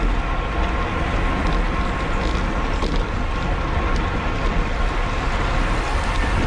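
Wind rushing over the microphone of a camera on a road bicycle at race speed, with the steady hum of the bike's tyres and chain drivetrain and a few faint clicks.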